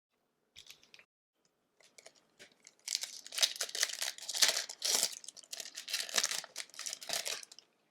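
Crinkling and tearing of a hockey card pack's foil wrapper, a dense crackle that builds about three seconds in and stops shortly before the end.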